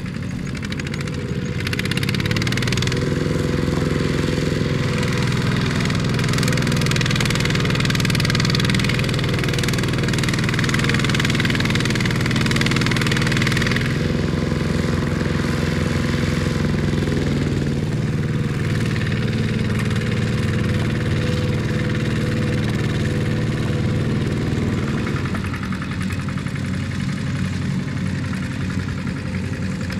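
Single-cylinder diesel engine of a two-wheel walking tractor running under load, its wheels clogged in mud as it strains to pull a trailer of rice sacks. It gets louder about two seconds in, shifts pitch twice in the middle and settles lower near the end.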